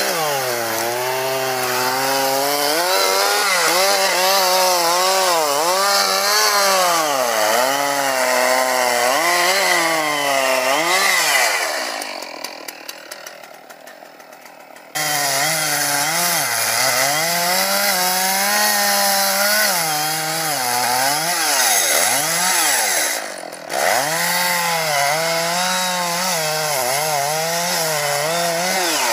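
Two-stroke chainsaw cutting into a large tree trunk, its engine pitch rising and falling continually as it works through the wood. About twelve seconds in the saw falls away to a much quieter sound for a few seconds, then comes back abruptly at full speed, with another brief dip later on.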